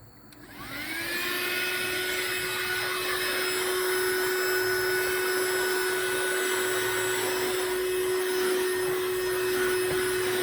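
Rechargeable handheld wet/dry car vacuum switched on about half a second in: its motor whine rises as it spins up, then it runs steadily with a hissing rush of air.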